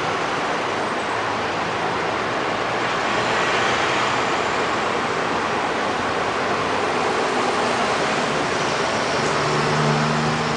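Steady city traffic noise, swelling a little in the middle. Near the end a passing vehicle adds a low engine hum.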